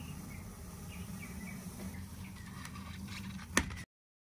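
Outdoor background noise with a steady low rumble and a few faint high chirps, then one sharp click, after which the sound cuts out to dead silence.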